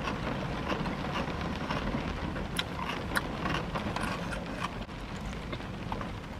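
Rain falling on a parked car, heard from inside the cabin: a steady hiss with scattered sharp ticks of drops striking the roof and glass.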